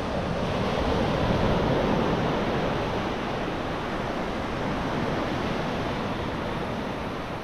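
Ocean surf breaking and washing up onto a sandy beach, a steady wash of noise that swells slightly a second or two in, with some wind on the microphone.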